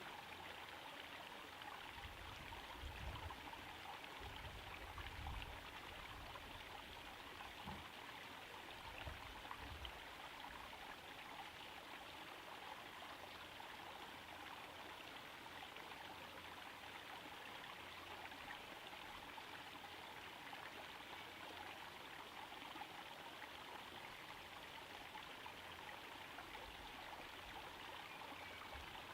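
Small garden pond waterfall trickling and splashing steadily into the pond, faint and even. A few low rumbles come through in the first ten seconds or so.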